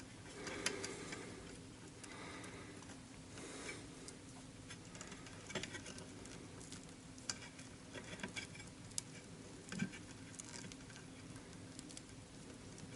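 Faint rustling and scattered small clicks of hands handling and connecting the wires of a pull chain light switch.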